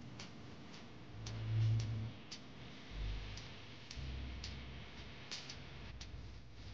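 Steady ticking, about two ticks a second, over faint room noise. A low hum swells briefly about one and a half seconds in and returns more faintly twice later.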